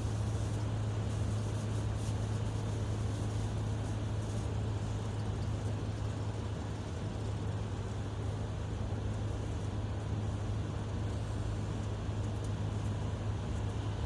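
Steady low engine drone and road noise heard from inside the cab of a heavy vehicle cruising at an even speed.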